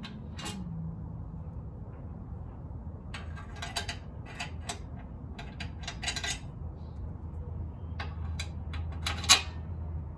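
Small metal T-nuts and an extruded aluminium rail clicking and clinking together as they are handled and fitted, a scattered string of light taps with one sharper clink near the end.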